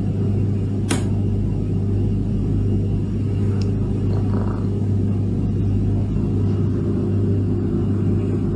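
A steady, loud low drone with no breaks, and a single sharp click about a second in.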